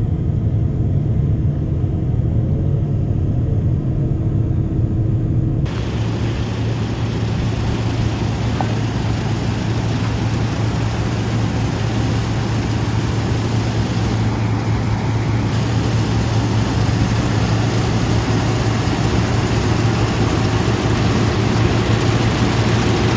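Lexion 585R combine running steadily with a continuous low engine hum. About six seconds in, the sound changes abruptly to a brighter, hissier mix over the same steady hum.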